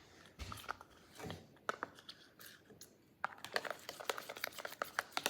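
Spoon stirring and scraping a sticky toothpaste-and-lotion slime in a container, with small clicks and squelches. They are scattered at first and turn into a rapid run of clicks from about three seconds in.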